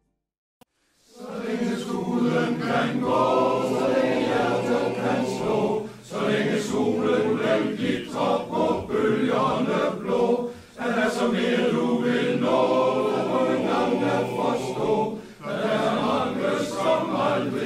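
Male-voice choir singing in several parts, starting about a second in after a brief silence and pausing briefly between phrases.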